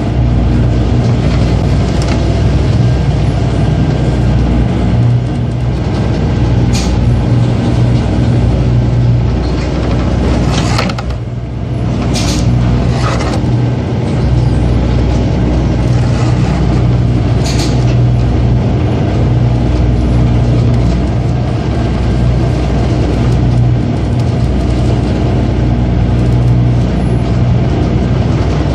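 Boat's diesel engine running with a steady low hum, with a few brief splashes or knocks cutting through it, in rough seas.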